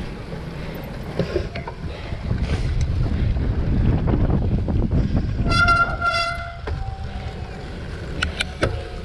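Wind buffeting the microphone of a bike-mounted action camera and the rumble of a cyclocross bike rolling over bumpy grass. A little past halfway come two short horn toots, and near the end a few sharp clanks.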